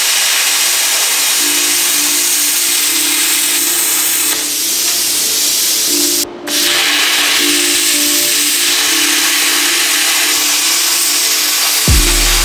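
Hand plasma cutter cutting through a steel frame bracket: a loud, steady hiss that stops for a moment about six seconds in, then starts again.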